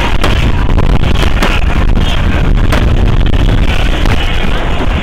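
A fireworks display going off, with several sharp bangs over a constant heavy rumble, while loud music plays.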